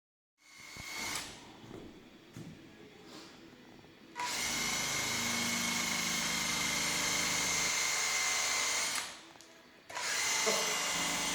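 Electric drill boring a hole into dense cedar wood. A few faint knocks, then the drill runs steadily with a thin whine for about five seconds, stops, and starts again near the end.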